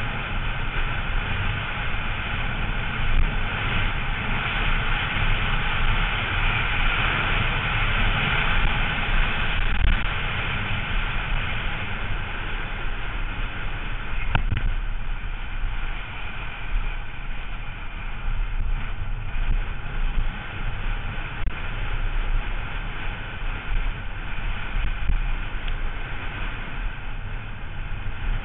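Downhill mountain bike descending fast on a loose dirt and gravel trail: a steady rush of wind buffeting the microphone over the rumble of the knobby tyres, with one sharp click about halfway through.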